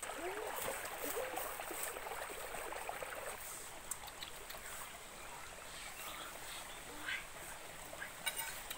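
Small rocky stream babbling and gurgling, loudest in the first few seconds and then quieter, with a few light clicks near the end.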